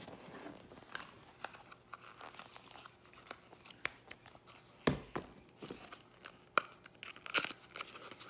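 Packaging being unwrapped and handled: rustling, crinkling and tearing, with scattered sharp clicks. There is a thump about five seconds in and a louder click about seven seconds in.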